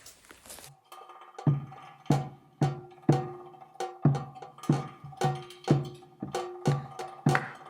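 Background music with a steady percussive beat of about two hits a second, wood-block-like clicks over low pitched notes. It cuts in a little under a second in, replacing a brief crinkling rustle.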